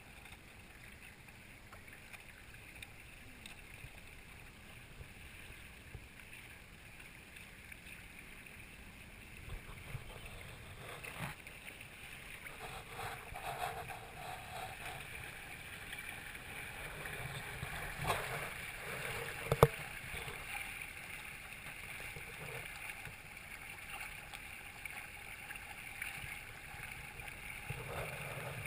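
Water rushing and splashing along the hull of a Hobie Tandem Island sailing kayak under way, heard through a GoPro's waterproof case. The water noise grows louder about ten seconds in. A few knocks come through, the sharpest about two-thirds of the way through.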